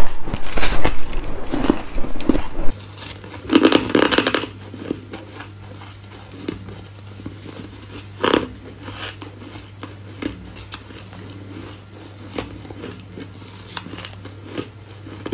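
Close-up biting and chewing of freezer frost: dense, loud crunches for the first couple of seconds. Then quieter mouthfuls of crushed ice are chewed, with crunches around four and eight seconds and lighter crackles between, over a steady low hum.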